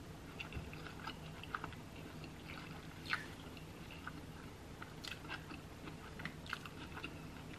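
Close-miked mouth sounds of a person chewing food: short, irregular clicks and smacks, with a bite into a cheeseburger a little past the middle.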